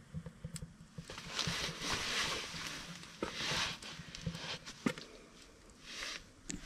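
Kindling fire crackling in an open wood stove, with sharp pops now and then. Several louder rustling swishes come over it, the longest in the first half.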